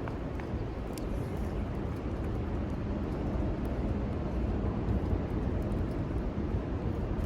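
Strong wind buffeting the microphone: a steady, wavering low rumble, with a few faint ticks on top.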